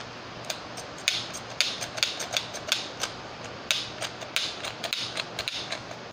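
Irregular plastic clicks and short scraping rustles from a small plastic Hulk toy being turned and squeezed in the hand.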